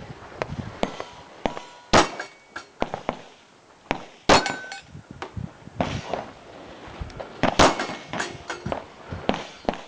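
Smith & Wesson M&P45 pistol firing .45 ACP rounds during a match stage: three loud shots about two to three seconds apart, the first about two seconds in, with many smaller metallic clanks and clicks between them.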